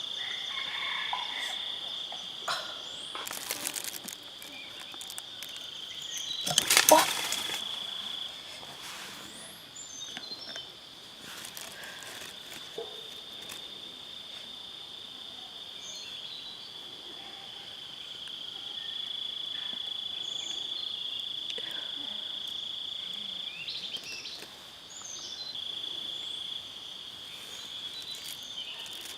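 Steady, high-pitched drone of insects calling in forest, with a loud brief rustle about seven seconds in and a few faint bird chirps scattered through.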